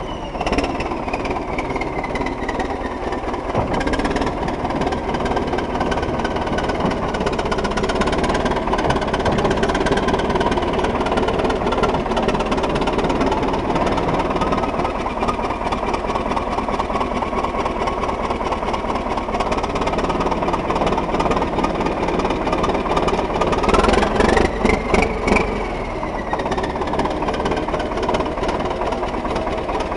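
T-170 crawler tractor's engine running steadily with a knocking clatter, on a test run after repair. About 24 seconds in it is revved once, the pitch rising and then falling back.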